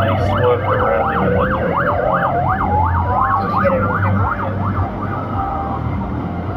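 NSW ambulance van's siren on a fast yelp, about three pitch sweeps a second, with a slower wail gliding down and back up under it. The yelp stops about four seconds in as the ambulance crosses and moves away.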